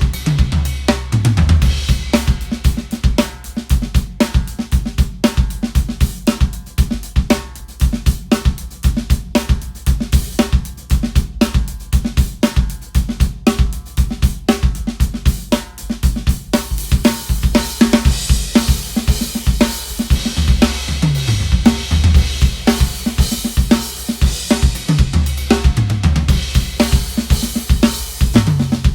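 DW drum kit, the drums tuned to the resonant frequency of their shells, played as a continuous groove of bass drum, snare, hi-hat and cymbals. Tom fills fall in pitch down the kit about a second in and again near the end, and the cymbals wash more heavily through the middle.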